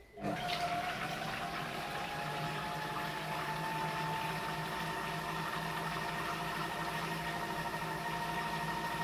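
Silvercrest Monsieur Cuisine Connect food processor starting up at speed 4: its motor spins the blade through a liquid mix of melted butter, oil and egg with a steady whine. The whine climbs a little in pitch over the first second or two.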